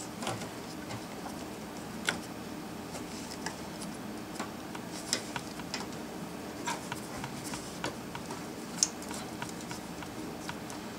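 Scattered light plastic clicks and taps as an electrical harness connector is handled and pushed onto the top of a fuel pump module, at irregular times, with the sharpest click near the end.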